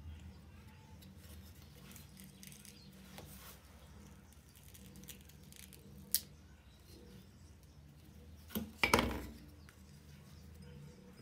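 Faint handling of homemade wooden lemon squeezers over a faint low hum: a single sharp click a little past the middle, then a couple of wooden knocks and a brief clatter about four-fifths of the way through, the loudest moment.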